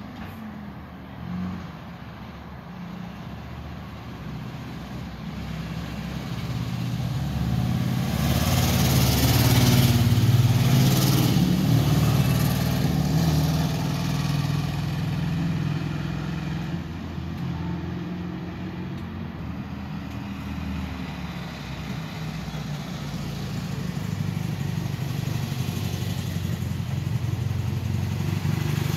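Volkswagen bay-window bus's air-cooled flat-four engine running as the bus drives up, growing louder to a peak about ten seconds in, then running steadily.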